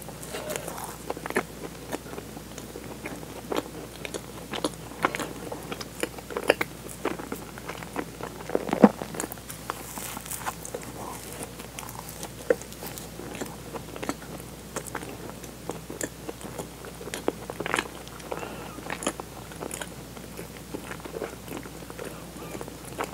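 Close-miked biting and chewing of a soft, sugar-dusted doughnut filled with cream and sweet red bean paste: irregular wet mouth clicks and smacks.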